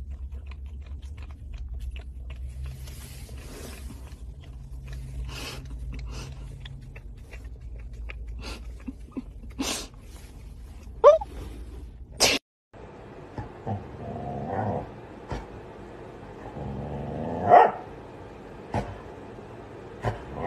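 Steady low car-interior rumble with scattered clicks and taps, and a short rising squeak about eleven seconds in. Then a husky gives little borks and short whiny vocal grumbles, the loudest a rising call near the end.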